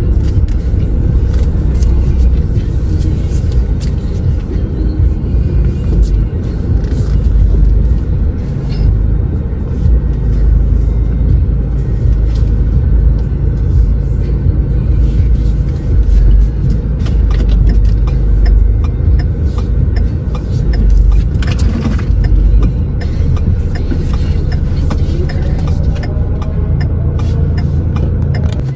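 Inside a car's cabin while it is driven slowly: a loud, low engine-and-road rumble, with music playing along with it.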